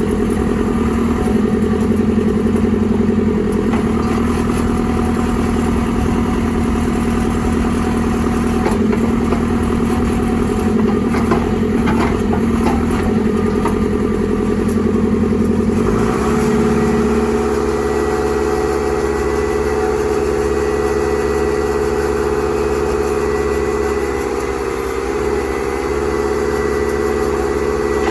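A JCB 3CX backhoe loader's diesel engine running. About halfway through its note drops and settles into a steady idle, and a thin high whine comes in, with a little clatter shortly before the change.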